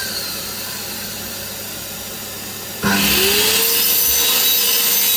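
A mitre saw's blade winds down quietly at the start. About three seconds in, the saw is switched on again and its motor spins up to a loud, steady whine with a high hiss.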